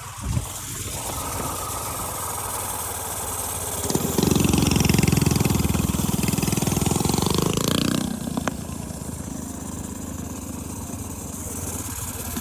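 Minibike's Predator 212 single-cylinder four-stroke engine running, louder and higher for about four seconds in the middle as the throttle is opened, then settling back to a steadier, quieter run.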